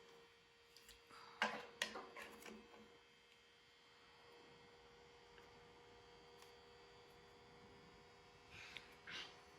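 Steady low electrical hum with handling noise: a quick run of clicks and rustles about a second and a half in, and a few softer ones near the end.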